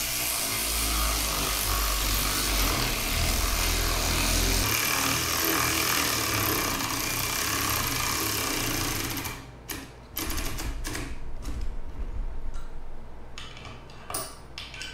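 Kimo 12V brushed cordless 3/8-inch ratchet running steadily for about nine seconds as it drives a lag screw into wood. It stops briefly, then runs in a series of short, uneven bursts. It lacks the torque to drive the lag screws fully home.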